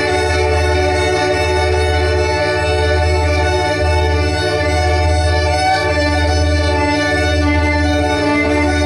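Drone music of sine wave oscillators and a bowed violin: many steady held tones, with the violin's sustained notes above them. A deep bass tone drops out for a moment a little more often than once a second, giving a slow pulse.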